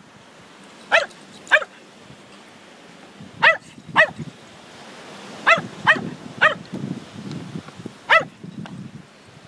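A dog's high-pitched play barks while dogs wrestle: eight short, sharp barks, mostly in quick pairs, each rising and falling in pitch.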